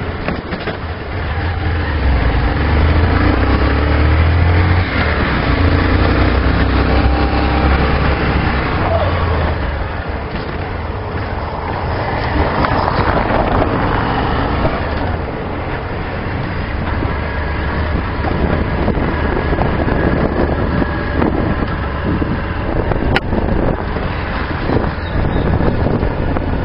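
Honda CG 125 Fan motorcycle's single-cylinder four-stroke engine running while riding over cobblestones, with the tyres rumbling on the stone paving.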